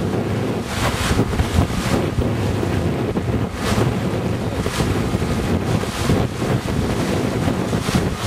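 Wind buffeting the microphone on the deck of a catamaran under way, in repeated gusts over a steady rush of wind and water.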